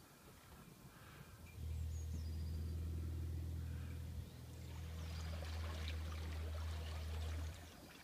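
Small motor pushing an inflatable canoe along, a steady low hum that starts about a second and a half in and stops shortly before the end. Water churning and splashing at the stern joins in the second half.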